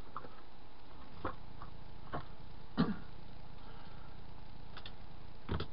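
Scattered light clicks and taps of a styrene bracket assembly being handled and set down on a workbench cutting mat, the loudest knock about three seconds in, over a steady low hum.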